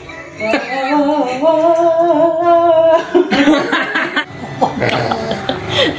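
A voice holds a slightly wavering sung or howled note for about two and a half seconds, then laughter follows.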